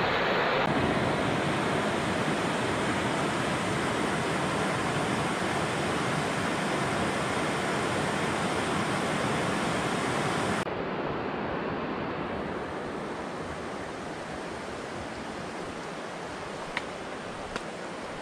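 Rocky mountain stream running over boulders and small cascades, a steady rush of water that turns a little quieter about ten seconds in. Two short sharp clicks near the end.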